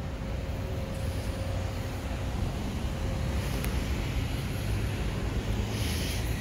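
Car traffic rumbling steadily as vehicles move through a shopping-centre parking lot, with a faint steady tone over the first half and a small click past the middle.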